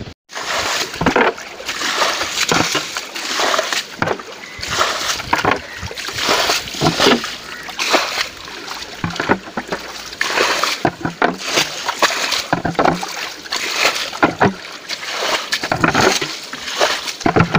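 Repeated, irregular splashing and sloshing of muddy water as it is scooped up with a plastic basin and dumped out, bailing down a shallow channel to catch trapped fish.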